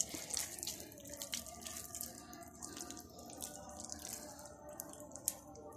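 A hand squishing chicken pieces through thick gram-flour batter in a bowl: faint wet squelching with scattered small clicks, one sharper click about five seconds in.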